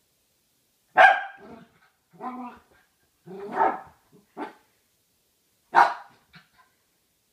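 A small wire-haired terrier barks about five times at a milk carton it is tussling with. The barks are short and spaced out, and the first and last are the loudest.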